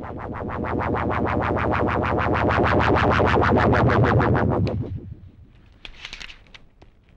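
Background film-score music: a fast, evenly pulsing figure that grows louder and then cuts off suddenly about five seconds in. A short soft rustle follows about a second later.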